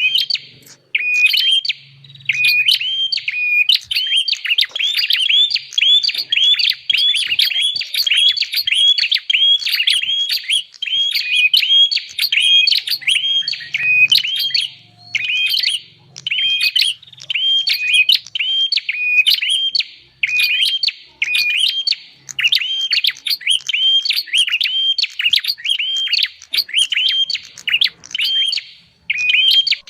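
Prenjak (prinia) calls from a bird-lure recording: rapid, repeated sharp chirps that overlap as if several birds are calling, coming in long bouts broken by brief pauses.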